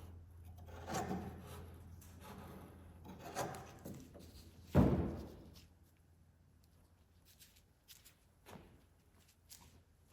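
Soft rubbing and dabbing as a small piece of fiberglass mat is worked into wet resin, with one loud knock about five seconds in. The last few seconds are nearly quiet, with a few faint ticks.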